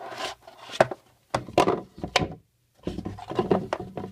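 Lid of a rigid cardboard trading-card box being worked off: repeated scraping and rubbing strokes with a few sharp clicks, and a brief pause a little past halfway.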